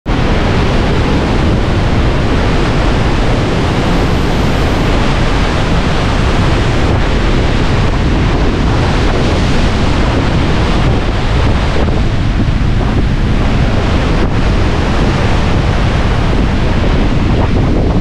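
Ocean surf breaking and foaming waves washing in around the pier pilings, a continuous loud rush of water with a heavy low rumble of wind buffeting the microphone.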